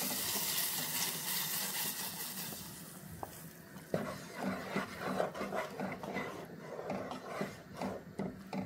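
Hot caramelized sugar hissing and sizzling as it pours into simmering milk, the hiss fading away over the first few seconds. After that, a wooden spoon stirs the milk and vermicelli in a granite-coated pan, with irregular scrapes and taps.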